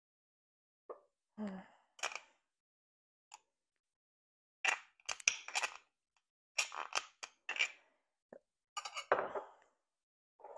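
Frozen lard being chiseled and scraped out of a jar with a utensil: irregular scraping, knocking and clinking in short spells, with brief pauses between them.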